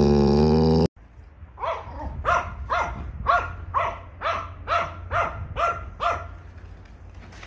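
A small dog barking in a quick run of about ten high barks, roughly two a second, that then stop. Before that, under a second of a dog's loud drawn-out vocalizing, which cuts off abruptly.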